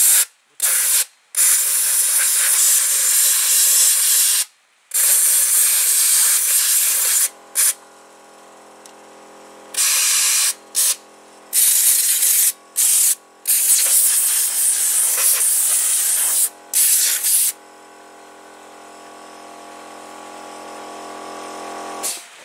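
Compressed air from a blow gun hissing through a brush cutter engine's cooling fins and vents, blowing the dirt out: repeated blasts, some short and some several seconds long, with brief gaps between them. From about seven seconds in a steady machine hum runs underneath and stops just before the end.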